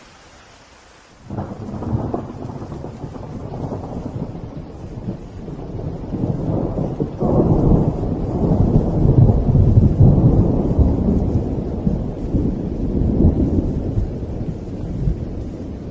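Steady rain hiss, then thunder starting suddenly about a second in: a long, deep rumble that builds over several seconds and slowly fades.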